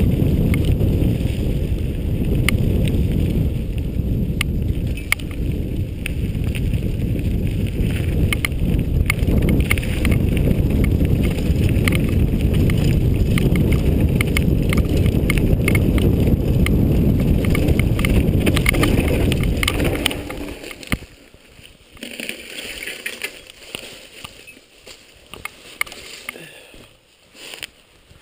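Mountain bike riding fast along a dirt trail, heard through an action camera: heavy wind rumble on the microphone with sharp clicks and rattles over bumps. About twenty seconds in the rumble drops away, leaving quieter crackles and knocks as the bike slows.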